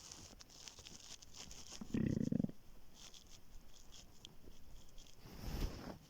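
Empty, hungry stomach growling: a short low gurgle about two seconds in, with faint crackling throughout and a soft rush near the end.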